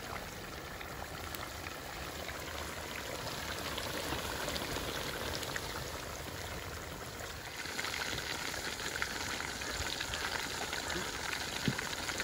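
Vaala fish pieces deep-frying in hot oil in an aluminium pot: a steady sizzle full of small pops, a little louder and brighter from about eight seconds in.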